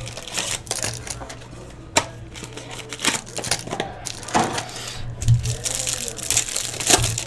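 Trading card packs and cards being handled: crinkling of pack wrappers and quick clicks and slaps of cards being flipped and stacked, an irregular string of short sharp noises.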